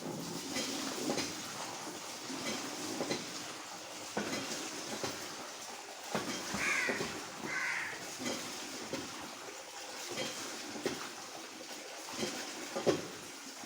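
A crow calls twice in quick succession about halfway through, two short caws. Scattered knocks and steady background din run underneath.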